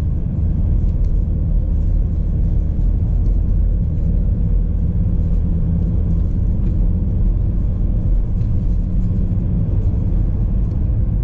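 Car driving along at steady speed, its engine and tyre noise heard as a continuous low rumble from inside the cabin.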